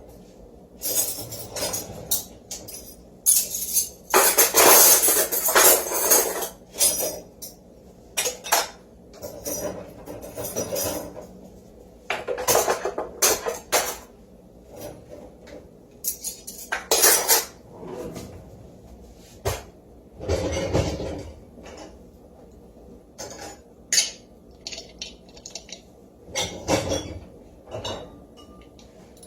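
Kitchen clatter: dishes, pots and cutlery knocking and scraping in a series of separate bursts with short pauses between.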